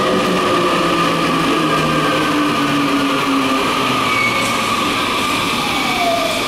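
Keio 1000-series electric train with a Hitachi 2-level IGBT VVVF inverter, slowing under electric braking. Its inverter and traction-motor tones fall slowly in pitch, and one tone drops more steeply near the end.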